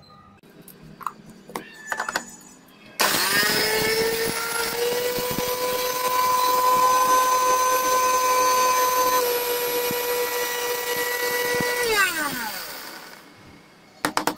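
Electric mixer grinder grinding whole dried red chillies. After a few light clicks and rattles of chillies going into the steel jar, the motor starts about three seconds in, quickly rising to a steady whine that runs for about nine seconds. It is then switched off and winds down with a falling pitch, followed by a couple of sharp clicks near the end.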